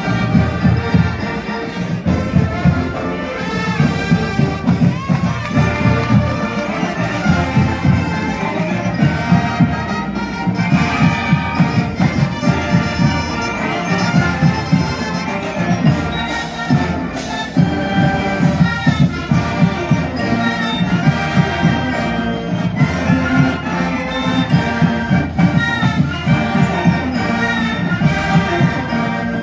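A marching band playing live: brass and flutes carry the tune over a steady beat.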